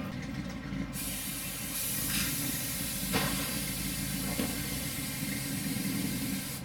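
Rat-rod pickup's carbureted V8 idling with a low, uneven rumble; from about a second in a loud steady hiss sits over it.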